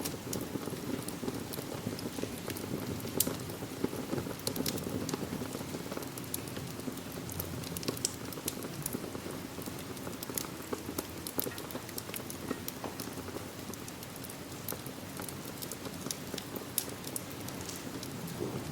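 Steady rain mixed with a crackling wood fire in a fireplace: a low, even rush with frequent sharp pops and ticks scattered through it.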